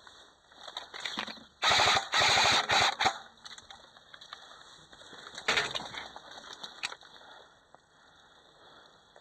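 Airsoft rifle firing: a loud, rapid burst of shots lasting about a second and a half, then a second, shorter burst a few seconds later.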